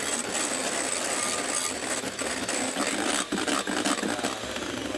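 Electric hand mixer running steadily as it whisks egg whites in a bowl, beating them toward stiff peaks for meringue.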